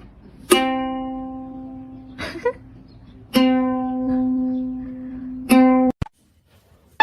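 Music: three single plucked-string notes, each sounded sharply and left ringing as it fades. The last note is cut off abruptly about a second before the end.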